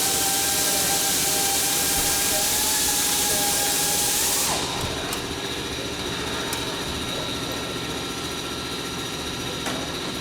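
A loud steady hiss with a whining tone, from workshop machinery, cuts off suddenly about four and a half seconds in, leaving a quieter steady hum.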